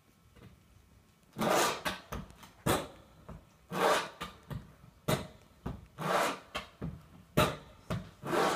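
Percussive dance steps: leather shoes striking and scuffing a wooden dance board in unaccompanied flat-footing. About a second and a half in, the steps begin in an irregular rhythm of short, sharp taps mixed with longer, drawn-out scuffs.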